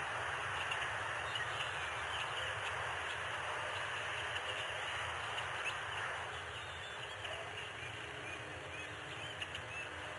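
Steady background hiss with scattered faint, short bird chirps throughout.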